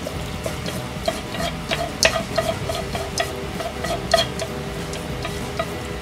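Creamy pasta being tipped and scraped out of a frying pan onto a plate: a run of light clicks and taps against the pan, loudest about two and four seconds in, then quieter.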